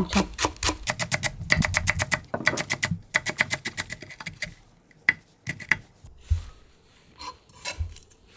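Chef's knife rapidly slicing a large green onion on a wooden cutting board: a quick, even run of crisp knocks, about seven a second, that breaks off into a few scattered cuts around five seconds in.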